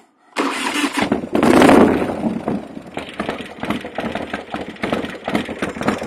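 A 1990 Harley-Davidson FXRS's 45-degree Evolution V-twin, rebuilt to 85 cubic inches with a bolt-on cylinder kit and rebuilt heads, starts about half a second in. It revs briefly, then settles into an idle of quick, uneven exhaust pulses.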